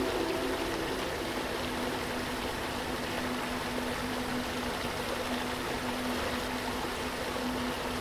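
Steady rush of water falling over a waterfall's rock ledges, with a soft, low, held tone underneath.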